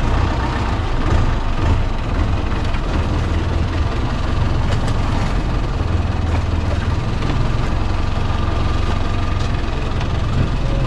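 Longtail boat engine idling steadily, a low, even rumble.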